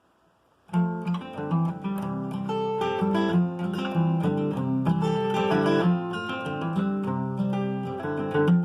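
Acoustic guitar playing a song's instrumental intro, starting just under a second in.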